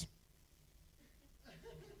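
Near silence: room tone in a pause of speech, with faint chuckling from the audience in the second half.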